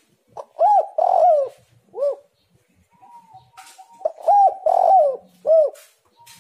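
Spotted dove cooing: two phrases about four seconds apart. Each phrase is a short coo, a longer rolling note and a final coo.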